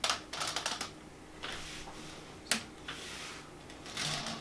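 Plastic Lego parts of an assembled Batmobile model clicking and rattling as it is handled and its wheel mechanism moved, with a sharp single click about two and a half seconds in.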